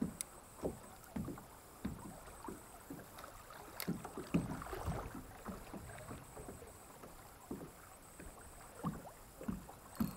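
Soft, irregular knocks and small water slaps against a plastic fishing kayak's hull, roughly every half second, over faint creek water.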